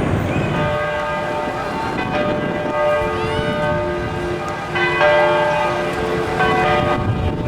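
Bell-like chimes: notes of several pitches struck in turn, about every one to two seconds, each ringing on, over a low background rumble.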